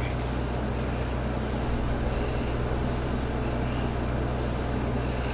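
A steady low hum under a constant hiss, unchanging throughout.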